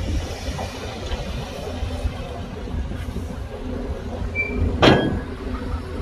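Heavy earth-moving machinery's diesel engine running with a steady low rumble, with one sharp, loud metallic clank about five seconds in.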